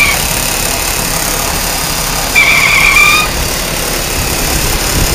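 2003 Ford Taurus engine running, with a loud high-pitched whine from the engine that comes in about two and a half seconds in and lasts about a second.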